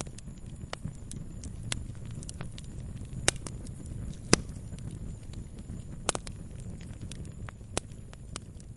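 Wood campfire crackling: irregular sharp pops and snaps, the two loudest about three and four seconds in, over a low steady rumble.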